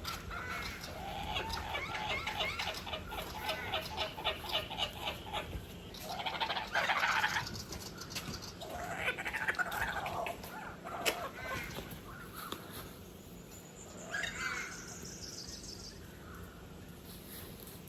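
Laughing kookaburra calling: a rapid rolling run of harsh repeated notes for about five seconds, then louder bursts of harsh laughing calls. Near the end there is a thin high whistle with a few chirps.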